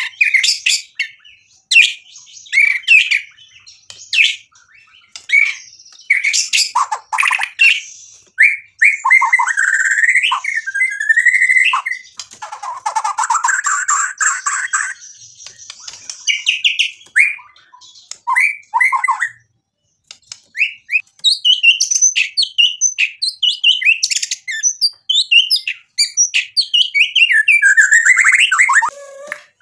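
Male white-rumped shama (murai batu) singing loudly and almost without a break: a long run of varied phrases of sharp whistles and rapid chips, with a harsh rasping stretch about halfway through and a brief pause about two-thirds of the way in.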